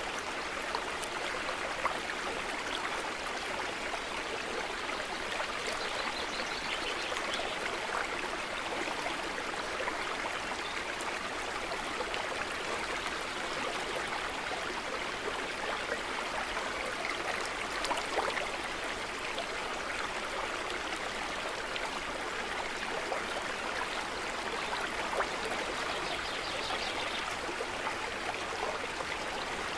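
A stream running steadily, an even rush of flowing water with small trickling splashes.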